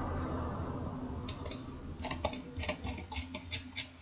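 Light, evenly spaced clicks from a computer, about four or five a second, starting about a second in, over a low hum that fades away.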